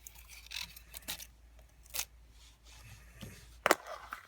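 Handling of a small plastic putty container as it is opened: light rustling with a few short sharp clicks, the loudest near the end.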